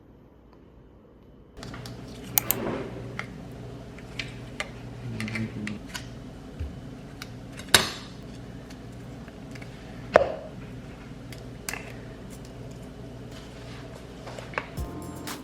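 Dishes and cutlery clattering during kitchen food preparation, with scattered sharp clinks. The loudest come about two and a half, eight and ten seconds in, over a steady low hum.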